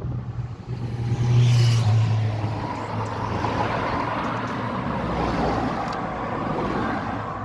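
Toyota D-4D diesel engine catching and briefly flaring up in revs about a second in, then settling to a steady idle.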